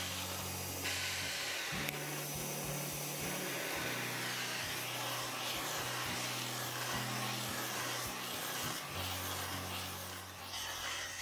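Hand-held gas torch flame hissing steadily while it heats a spun brass disc to anneal it, softening the work-hardened metal.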